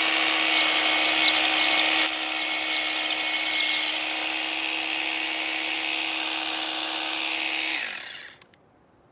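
Cordless rotary hammer drill boring a bolt hole into sandstone, running steadily at full speed with a constant whine. About eight seconds in, the trigger is released and the drill winds down and stops.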